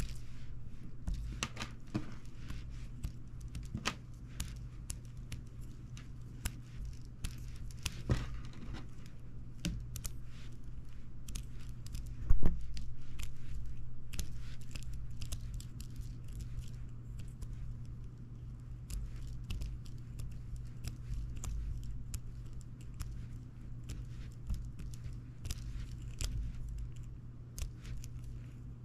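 Plastic spiral springs twisted, rubbed and squeezed between fingers on a wooden tabletop: dense small clicks, rattles and scrapes, with one sharp, much louder knock about twelve seconds in. A steady low hum runs underneath.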